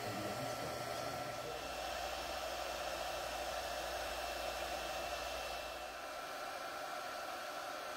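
Voxelab Aquila 3D printer running as it prints: a steady whir of its cooling fans with thin, steady high tones over it. The sound shifts slightly about six seconds in.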